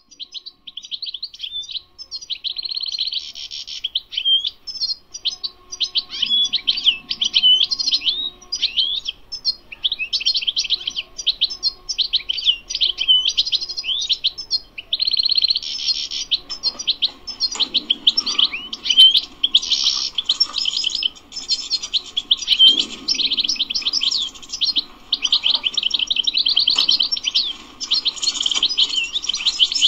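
European goldfinch singing a long, fast twittering song of rapid trills and buzzy notes, with only brief breaks.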